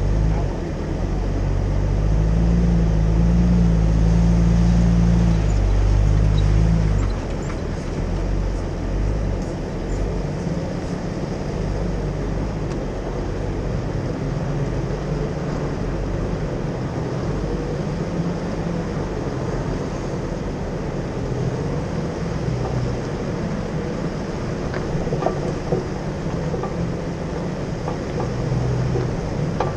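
Jeep driving slowly off-road over sand and gravel: a steady low engine and drivetrain rumble with tyre and road noise. It is louder for about six seconds early on, then settles, with a few sharp ticks of stones near the end.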